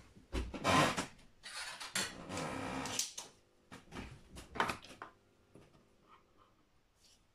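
Tools and parts handled on a workbench: a knock and a rustling scrape, a longer scraping rummage, then several small clicks and clatters as tools are picked up and set down.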